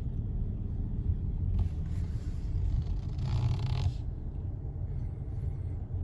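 Low, steady road and engine rumble of a Mini Cooper Paceman, heard from inside the cabin. A brief hiss swells and fades about three seconds in.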